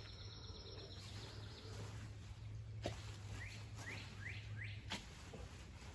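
Birds chirping in short, repeated rising calls, with two sharp snips about three seconds in and near the end from hand pruners cutting back patty pan squash stems.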